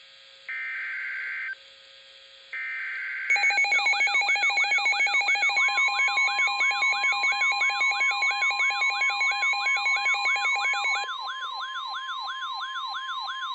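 Emergency Alert System SAME header: two buzzy digital data bursts about a second long, with short gaps between them. About three seconds in, a loud layered alert tone follows. It is made of fast wailing siren-like sweeps, about two and a half a second, over steady beeping tones, and a steady warning tone joins a little later. The steady beeping tones drop out near the end, and the sweeps and the warning tone carry on.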